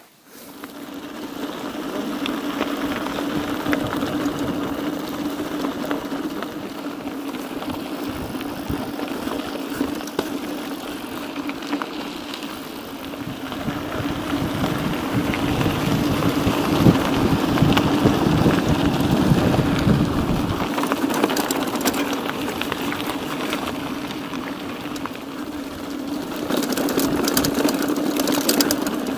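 Mountain bike riding: a continuous rumble of tyres rolling with a steady hum and wind on the microphone, growing louder for a few seconds past the middle.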